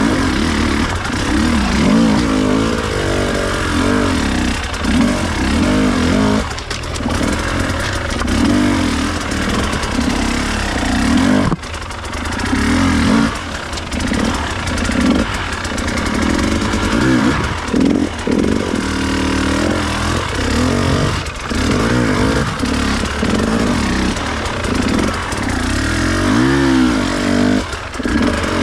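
Enduro dirt bike engine revving up and down over and over under changing throttle, with brief drops where the throttle is closed.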